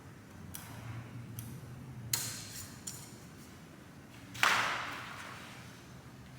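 Metal engine parts and tools clinking and knocking on a workbench: a few light clinks, then one louder clatter about four seconds in that trails off over a second.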